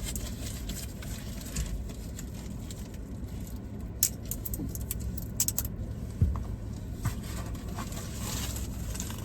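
Small clicks, taps and scrapes of takeout containers and sauce cups being handled, a few sharp ones about halfway through, over a steady low hum like a car cabin with the engine running.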